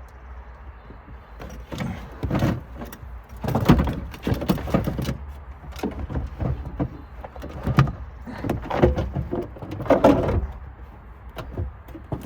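Replacement 12-volt car battery being test-fitted in its trunk tray: irregular clunks, knocks and scrapes as it is set in and shifted around, heaviest about 4 seconds in and again around 9 to 10 seconds, over a low steady rumble.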